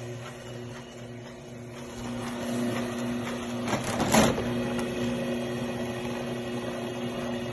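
Motorized wire stripper running with a steady hum as microwave waveguide is fed through it, the hum getting louder about two seconds in. About four seconds in there is a brief noisy scrape as the blades cut into the waveguide.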